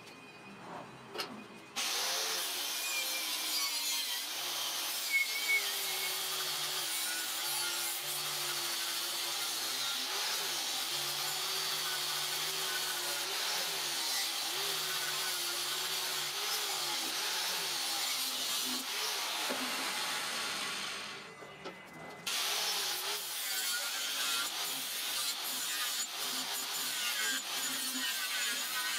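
Chicago Electric angle grinder with a cut-off wheel cutting steel square tubing, its motor pitch wavering as the wheel bites. It starts about two seconds in, stops briefly about two-thirds of the way through, then cuts again.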